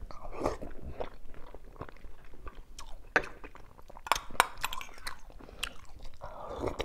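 Close-up chewing of a mouthful of soft pork-stuffed cucumber soup, wet and irregular, with scattered sharp mouth clicks.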